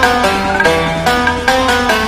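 Background music: a fast plucked-string melody over a steady bass line, with a quick regular beat.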